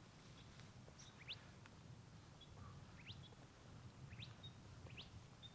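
Near silence with a few faint, short bird chirps, each a quick rising note, spaced about a second apart.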